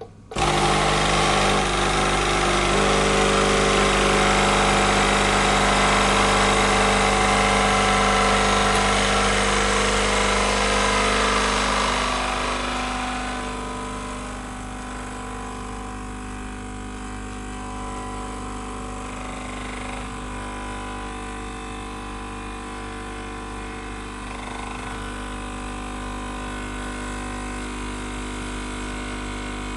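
AEG A Modo Mio Favola capsule espresso machine's pump running as it brews a Lavazza pod: a steady mechanical hum that starts suddenly just after the start, then drops to a quieter steady level about twelve seconds in.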